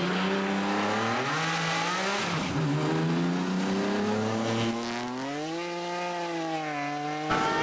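Rally car engine pulling hard, its pitch climbing, falling back at a gear change about two seconds in, climbing again, then swelling and dropping away. The sound cuts off abruptly near the end.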